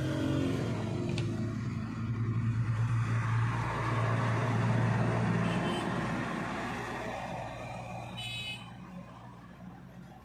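A motor vehicle's engine passing by, swelling to its loudest about halfway through and fading away toward the end.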